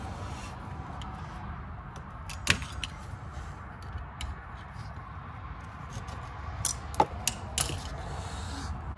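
Sharp metallic clicks as a hooked tool works a return spring off a drum-brake shoe: one click a few seconds in, then a quick cluster near the end as the spring comes free. A steady low rumble runs underneath.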